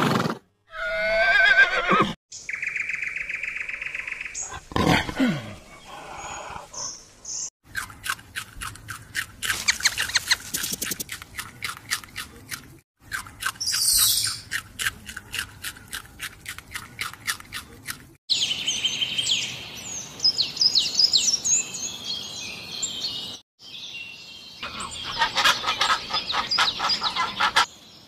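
A run of different animal calls, one after another with hard cuts between them: a wavering horse whinny at the start, long stretches of rapid clicking chatter, and high chirping bird calls.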